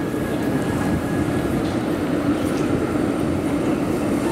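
Tram rolling past close by on street track: a steady rumble of steel wheels on the rails and running gear.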